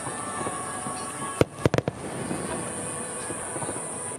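Aerial fireworks shells bursting: a continuous crackle of glittering stars, with a quick cluster of three or four sharp bangs about a second and a half in.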